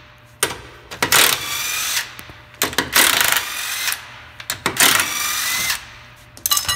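Electric impact wrench with a 21 mm socket spinning lug nuts off a car wheel, in three whirring bursts of about a second each.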